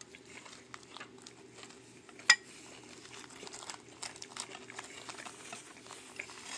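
Plates and paper towel handled at a table: scattered small clicks and rustles, with one sharp clink about two seconds in, over a steady low hum.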